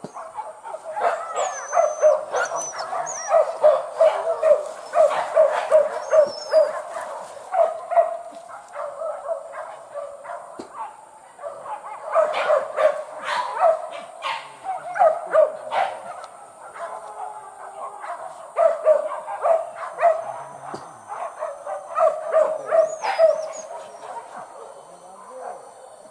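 Hunting dogs barking and yelping in quick runs of short barks, the excited baying of a pack on the chase of a wild boar.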